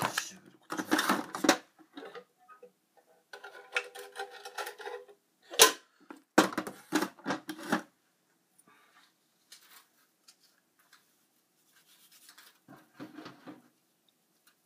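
Irregular rubbing and scraping from hands working in a stainless steel kitchen sink, with a sharp knock about six seconds in. The sounds thin out to faint handling noise after the first eight seconds.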